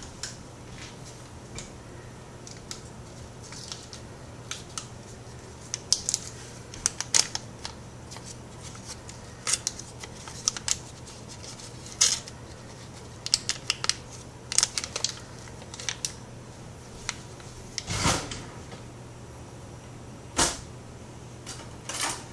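Irregular light clicks and clatters of small kitchen items being handled while butter and salt are measured out, over a steady low hum.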